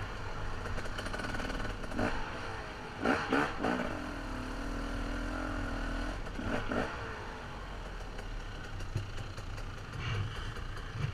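Dirt bike engine running at low, fairly steady throttle while the bike picks its way over a rocky trail, with a few short knocks and clatter from the rocks along the way.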